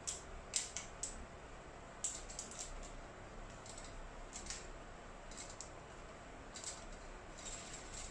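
Wooden spring clothespins on a metal drying rack clicking as they are unclipped from the clothes, in irregular light clicks, sometimes two or three close together.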